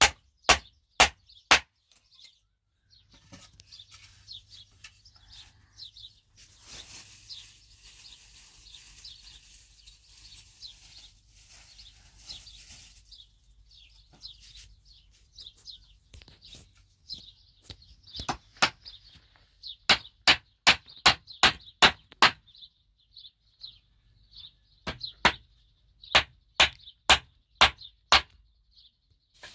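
Hammer blows on weathered wooden planks: a few strikes at the start, a long pause, then two runs of quick, steady blows, about three a second, in the second half. Small birds chirp throughout.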